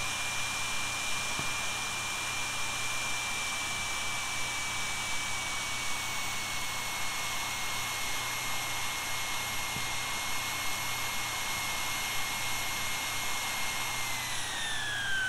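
Jet Central Rabbit SP model turbine engine running at about 100,000 RPM: a steady rushing hiss with a high whine that drifts slightly lower. Near the end the whine falls in pitch as the engine is throttled back toward idle.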